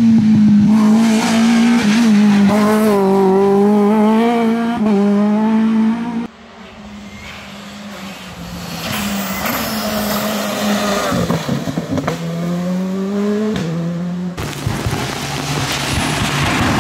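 Rally cars driven hard on a special stage, engines revving high and wavering in pitch with throttle and gear changes. The sound cuts abruptly about six seconds in to a quieter car that grows louder as it approaches, and cuts again near the end.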